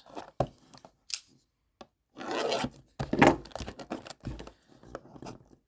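Cardboard trading-card blaster box being torn open by hand: a few rasping tears and rubbing scrapes in fits and starts, the loudest about two to three and a half seconds in, with small clicks between.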